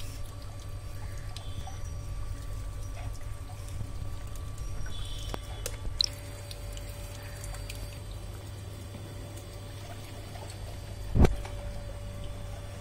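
Liquid shampoo trickling from a squeeze bottle into a plastic mug, over a steady low hum. A single loud knock sounds near the end.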